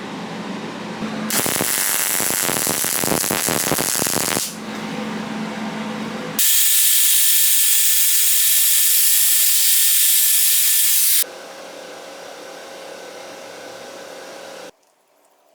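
Shop power tools working metal in a series of short, abruptly cut takes: first a loud crackling stretch, then a loud steady hiss with a thin whine, then a lower steady hum that stops near the end.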